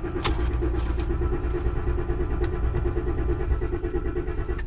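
2014 Ford Raptor's 6.2-litre V8 being cranked by the starter with a steady, even pulse, turning over without firing. This no-start comes from a blown fuel pump fuse (fuse 27), so no fuel reaches the engine.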